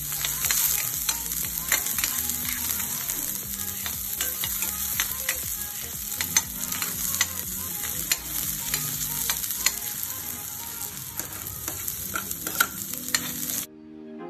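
Red onion and ginger sizzling in hot oil in a stainless steel frying pan while being stirred, the spatula clicking and scraping against the pan many times. The sizzling cuts off suddenly near the end.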